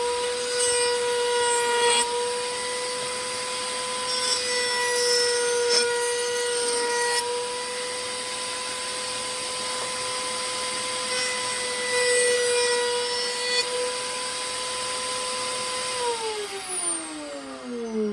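Table saw running with a steady whine, cutting wood in a few louder stretches. About 16 s in it is switched off and its pitch falls away as the blade spins down.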